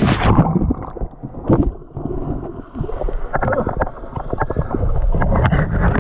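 A kayak capsizing in a river rapid: a splash, then the sound turns suddenly dull and muffled about half a second in, with gurgling, churning water and irregular knocks and thrashing as the paddler is in the water among the river cane.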